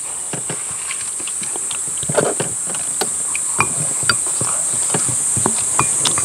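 Eating at a table: spoons and chopsticks clicking and scraping on bowls, with chewing, over a steady high-pitched insect drone.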